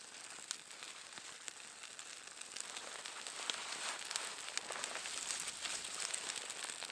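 Small campfire of birch bark and kindling sticks catching: a hissing crackle full of sharp little pops, growing steadily louder as the flames build.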